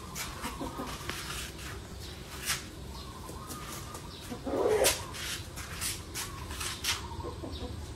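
Chickens clucking in short, repeated calls, the loudest one about halfway through, over a steady low hum.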